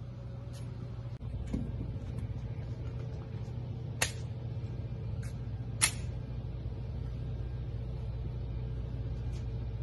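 Steady low hum of an indoor shooting range's ventilation, with scattered sharp cracks; the two loudest come about four and six seconds in.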